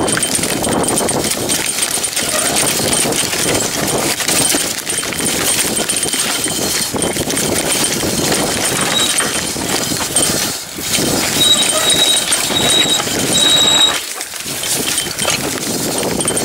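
Mountain bike descending a rough dirt and rock trail: tyres crunching over stones and roots while the frame and chain rattle with continual clatter, the noise easing briefly twice in the second half.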